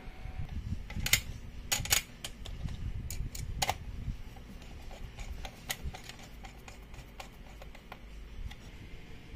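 Screwdriver driving a screw into the amplifier's sheet-metal chassis: a string of sharp metallic clicks and scrapes, loudest and most frequent in the first four seconds and sparser after, over a low handling rumble.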